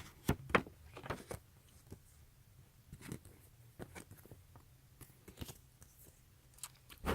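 Paper booklet and packaging being handled: scattered rustles and light taps, the loudest in the first second.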